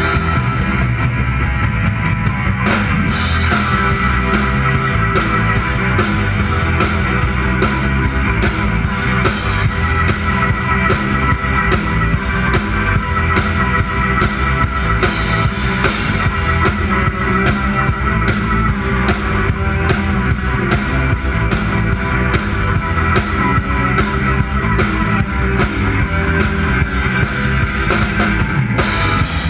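Live band playing rock music with drum kit and electric guitar, loud and steady; the drums and cymbals come in fully about three seconds in.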